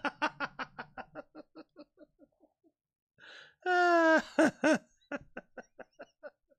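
A man laughing hard: a quick run of laughs, about six a second, that fades away, a breath in, then a loud drawn-out cry falling slightly in pitch, followed by another run of laughs.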